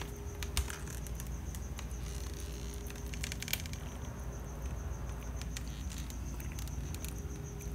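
A cat eating wet cat food from a bowl: wet chewing and smacking clicks in irregular clusters. Under it runs a faint steady high-pitched whine and a low hum.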